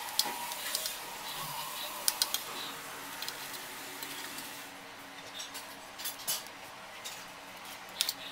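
Small kitchen knives tapping and clicking on steel plates as tomatoes and boiled sea snail meat are cut into small pieces: light, irregular taps, a few louder ones about two seconds in and again near the end.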